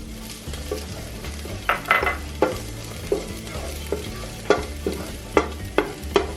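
Minced garlic sizzling in oil in a pan while it is stirred, with a utensil tapping and scraping against the pan in repeated sharp knocks.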